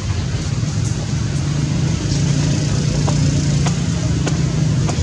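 A motor vehicle's engine running, a steady low hum that grows louder about two seconds in, with a few faint clicks over it.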